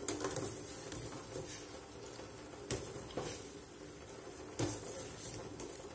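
A few separate sharp clinks and knocks of stainless-steel kitchenware being handled, four or so spread over several seconds, over faint steady background noise.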